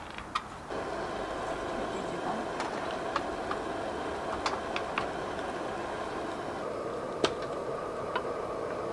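Portable gas stove burner hissing steadily, coming on abruptly under a second in, with scattered light clicks and taps of utensils and a jar.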